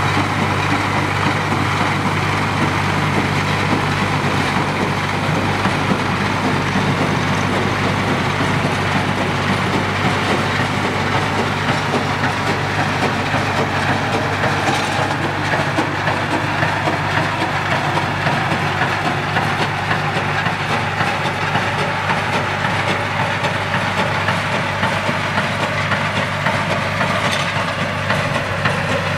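Square baler running steadily: a constant low hum with a dense mechanical clatter of working parts over it.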